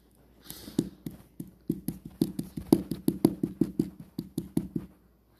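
A quick run of light taps, about five a second for some four seconds, from small plastic toy figures knocked about by hand close to the microphone.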